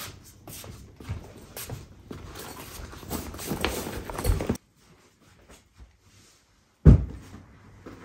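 Footsteps on a hardwood floor mixed with the rustle and knocks of a nylon duffel bag being carried and set down, cutting off abruptly a little after halfway. After a short silence comes one loud thump.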